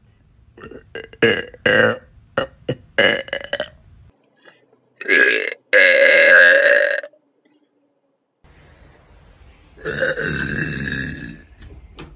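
A person burping: a quick run of short burps, then two longer drawn-out burps.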